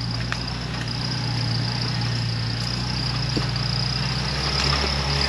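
Off-road vehicle's engine running at low speed, a steady low drone that grows slightly louder near the end.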